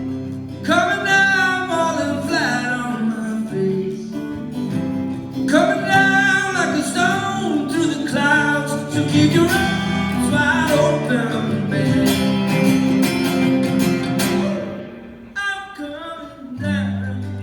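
Live band playing a slow rock song, led by guitar with singing. There is a short lull in loudness near the end.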